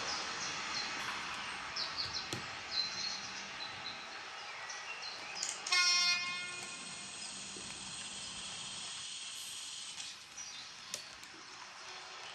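H0-scale model freight train rolling past with a steady running noise that slowly fades, with a few short high squeaks in the first seconds. A short horn toot sounds about six seconds in.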